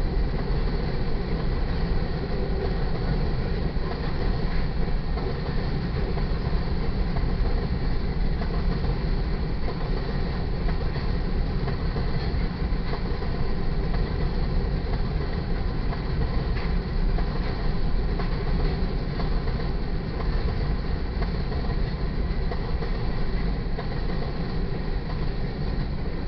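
Freight cars of a potash train rolling steadily past, a continuous rumble and rattle of steel wheels on rail.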